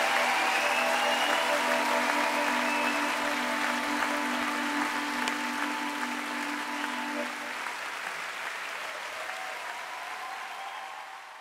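Background music with held notes over a dense noisy wash, fading out near the end.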